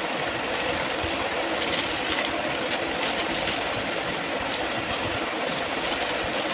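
Steady mechanical whir of a running machine, even in level, with faint crinkling of a small plastic jewellery packet being handled.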